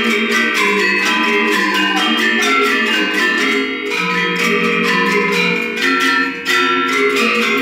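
Gender wayang ensemble: several Balinese gender metallophones, their bronze keys struck with mallets over bamboo resonators, playing fast interlocking figuration in rapid strokes. The playing thins briefly about six and a half seconds in, then resumes at full level.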